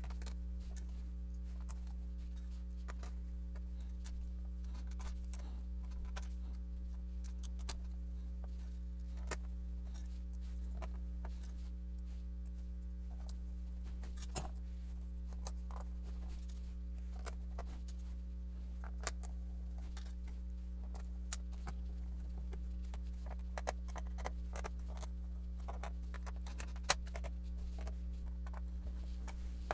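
Small screws being turned by hand into the plastic bottom case of an Acer C720 Chromebook with a small screwdriver: scattered light clicks and ticks, one sharper tick near the end, over a steady low hum.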